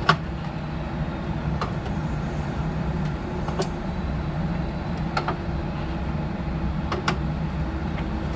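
Steady low hum with a handful of light knocks and clicks, spaced a second or two apart, from groceries being handled and put away.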